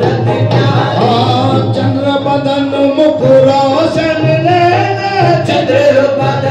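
Qawwali: male voices singing with harmonium accompaniment, with long held notes over a steady low drone.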